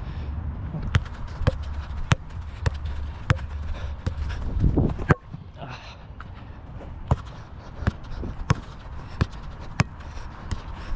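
Footsteps on artificial turf picked up by a head-mounted action camera: a run of sharp steps about every half second to two-thirds of a second, pausing briefly about halfway through, over a low rumble of wind on the microphone.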